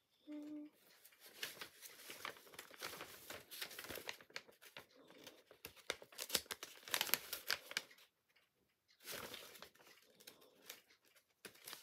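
Crinkling and rustling as craft things are handled and rummaged through, a dense run of small crackles that pauses for about a second near the end.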